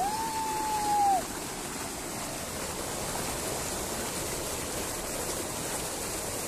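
Muddy floodwater from an overflowing small dam rushing steadily across a road. In the first second a voice calls out one long, high held note over the water.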